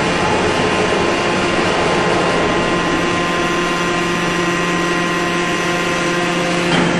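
Four-column hydraulic deep drawing press's power unit running with a steady hum and whine that does not change.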